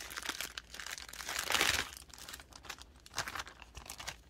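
Small clear plastic bags of beads crinkling as they are picked up and handled, in an irregular run of crackles that grows louder for a moment about a second and a half in.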